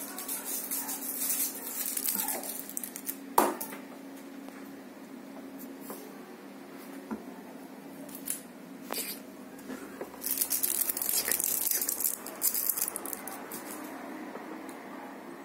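Crinkling and rustling of a candy-wrapper cat toy, in bursts: in the first two seconds or so and again from about ten to thirteen seconds in. One sharp thump about three and a half seconds in is the loudest sound.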